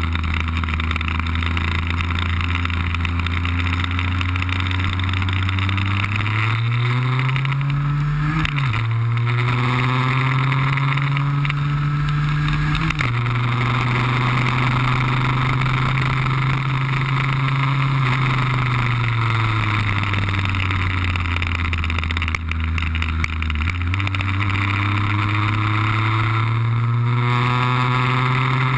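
Lambretta cut-down scooter's two-stroke RB20 engine heard from on board while lapping. Its pitch climbs under acceleration and drops sharply at gear changes about eight and thirteen seconds in. It then falls as the scooter slows, jumps up about twenty-three seconds in and climbs again.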